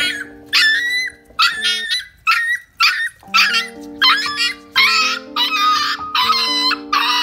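Puppy crying in a string of short, high-pitched whimpers and yelps, about one or two a second, over background music with long held chords.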